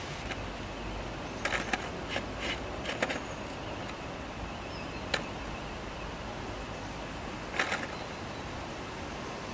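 Steady outdoor hiss with several small, sharp clicks and knocks in little groups: a skateboard being shifted about with its tail set on the coping of a concrete ramp, ready to drop in.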